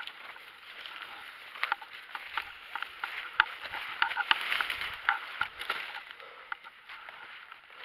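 Footsteps crunching through dry fallen leaves, with irregular sharp cracks of twigs and rustling of brush underfoot.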